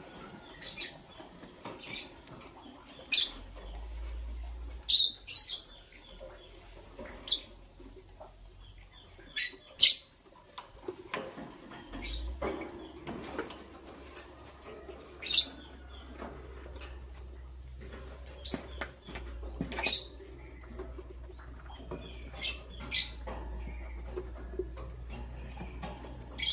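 Lovebirds chirping: short, sharp, high-pitched calls, a dozen or so at irregular intervals, with fainter ticks between them.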